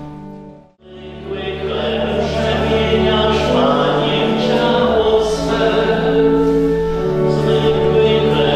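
Church choir singing a hymn over sustained low organ notes. The music drops out briefly under a second in and comes back.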